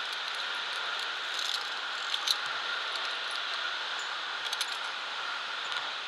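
Via ferrata gear clinking: short metallic clicks and rattles in a few small clusters, the loudest about two seconds in, as carabiners and gloved hands move on the steel cable and iron rungs. A steady rushing hiss lies underneath.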